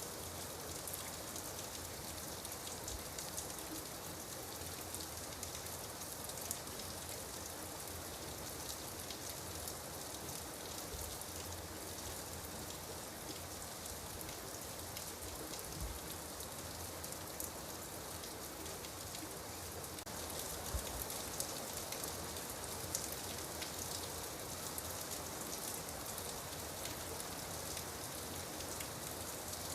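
Steady rain falling on a surface, a dense haze of fine drop ticks, getting a little heavier about two-thirds of the way through.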